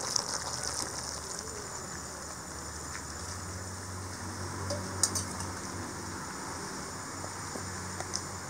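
Potato and brinjal gravy cooking in a kadai, a ladle stirring it at first, with a sharp metal clink of a utensil about five seconds in. Insects chirr steadily in the background.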